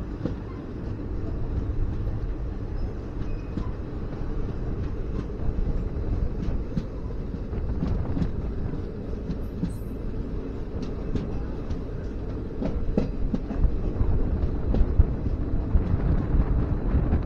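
Passenger train running at speed, heard on board: a steady rumble of the coach's wheels on the track with scattered sharp clicks, getting louder over the last few seconds.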